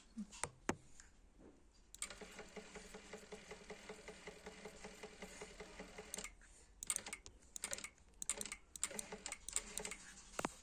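Electric sewing machine running for about four seconds, starting about two seconds in: a motor hum with a regular knock several times a second. The knock is the fault being shown. Scattered sharp clicks and taps follow once it stops, with a few more near the start.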